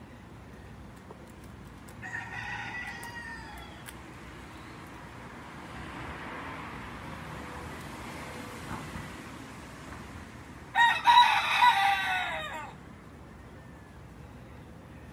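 Rooster crowing twice: a fainter crow about two seconds in, then a much louder crow lasting about two seconds later on.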